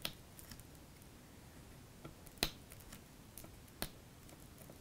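A handful of small, sharp clicks a second or more apart, the clearest about halfway through, as the tip of an X-Acto craft knife picks at and lifts small pieces of cut adhesive vinyl on a plastic cutting mat.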